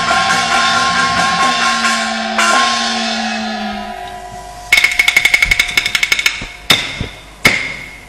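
Chinese opera orchestra accompaniment: sustained instrumental tones fade away over the first four seconds. Then the percussion enters about five seconds in with a fast, even roll of sharp, hard strokes, followed by two single strikes near the end.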